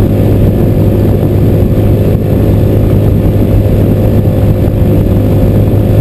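Motorcycle engine running steadily at highway cruising speed, a constant low drone mixed with rushing wind noise on the bike-mounted microphone.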